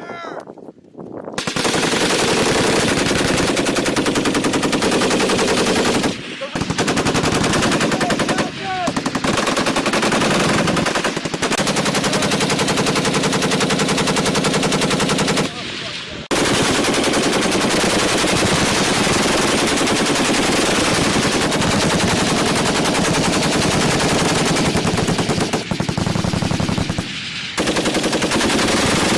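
M240B 7.62 mm belt-fed machine guns firing fully automatic in long, sustained bursts, a rapid even stream of shots broken by a few short pauses.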